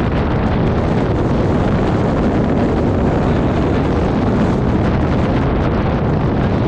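Steady wind rush over the camera microphone on a moving motorcycle, with the bike's engine and road noise mixed in beneath it.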